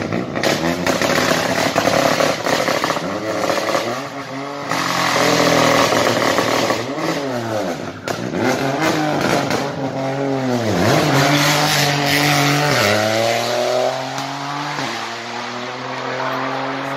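Rally car engine revving hard as the car accelerates away through the gears, its pitch climbing and dropping back with each shift. Sharp cracks sound over it in the first few seconds, and the note steadies toward the end.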